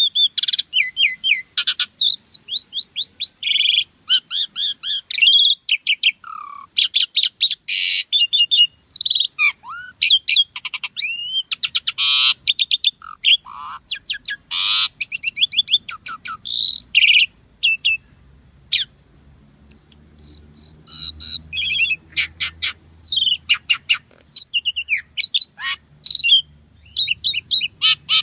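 Asian pied starling (jalak suren) singing continuously: a quick, varied stream of whistles, rising and falling slurs, rapid chatters and harsh buzzy notes, the full mixed repertoire that keepers call 'gacor full isian'.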